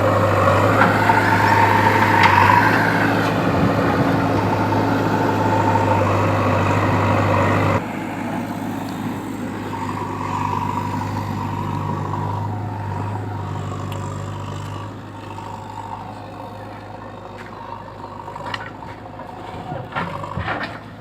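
JCB 3DX backhoe loader's diesel engine running under working load, with a whine that rises and falls in the first few seconds. About eight seconds in the level drops suddenly and the engine runs on more quietly, with a few short clanks near the end.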